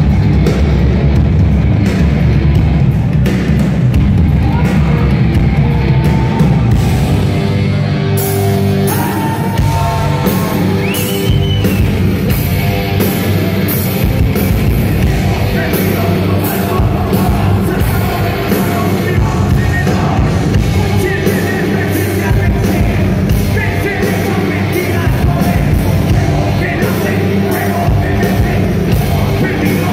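Live rock band playing loudly in a hall, heard from among the audience, with singing and yells. About eight seconds in the music turns brighter, with steady sharp hits.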